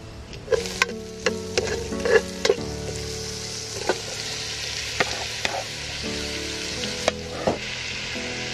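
Beef pieces sizzling as they sear in a metal pot, stirred with a wooden-handled spatula that knocks and scrapes against the pot about ten times. The sizzle swells up about half a second in and then holds steady.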